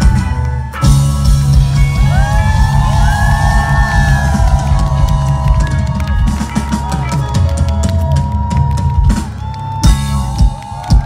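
A live rock band plays, with a drum kit driving the beat on bass drum and snare under guitar, and bending pitched lines ride over the top. Near the end the sound thins to separate sharp drum hits.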